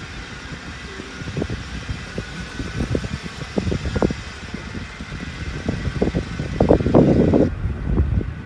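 Vehicle driving slowly over a rough grass field track: a steady low engine rumble with irregular knocks and rattles from the bumpy ground. The rattling is loudest about seven seconds in.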